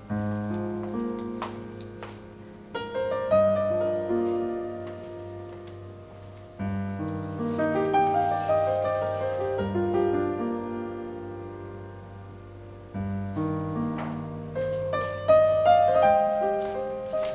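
Slow piano background music: chords struck every few seconds, each ringing out and fading, over a held low bass.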